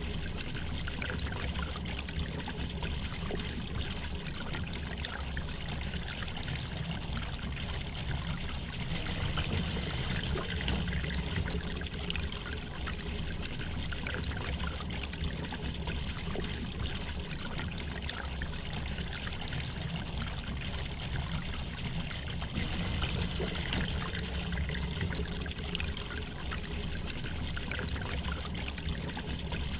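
River water flowing gently over stones, a continuous trickling and babbling with a steady low rumble underneath.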